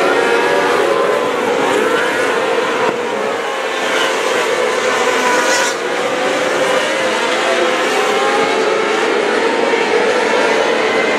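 A pack of non-wing open-wheel dirt-track race cars running at racing speed, with several high-revving engines overlapping. Their pitch rises and falls as the cars work through the turns and down the straights.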